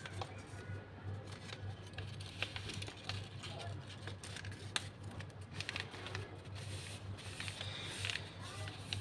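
Craft paper handled, folded and pressed flat by hand: scattered light rustles and small taps over a steady low hum.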